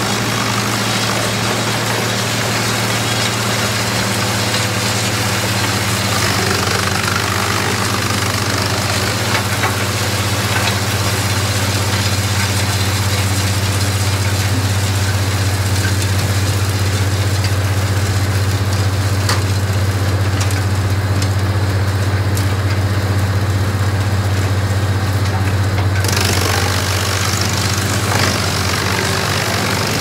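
Large trailer-mounted wood chipper running at full speed with the crane tractor feeding it: a steady, loud engine drone with a low hum, under the noise of logs being chipped. The higher chipping noise thins out about two-thirds of the way through, then cuts back in sharply.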